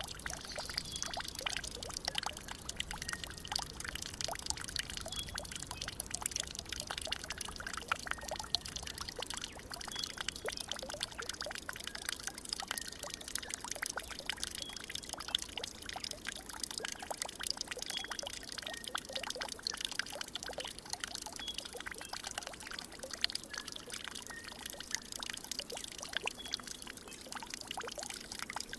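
Water trickling and splashing steadily, a dense continuous patter, with faint short high-pitched calls every couple of seconds.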